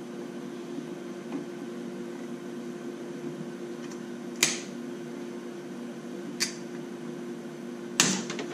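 Three sharp snips as the old stretch-fit accessory belt on a Subaru WRX STI engine is cut off by hand: one about halfway, one two seconds later and the loudest near the end, over a steady low hum.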